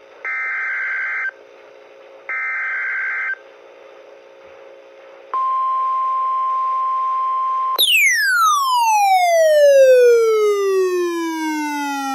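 Emergency Alert System tornado warning on NOAA Weather Radio, heard through a weather radio's speaker. It begins with the last two SAME header data bursts: one-second buzzy screeches with a second's pause between them. A steady 1050 Hz warning tone follows for about two and a half seconds. About eight seconds in, a siren-like wail takes over, falling steadily in pitch over several seconds.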